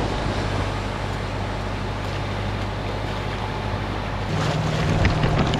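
Steady low motor hum under a wash of wind and water noise; a second, slightly higher hum joins about four seconds in and the sound gets a little louder.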